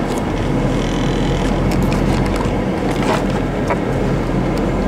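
Steady road and engine rumble inside a moving car's cabin, with a few light clicks about three seconds in.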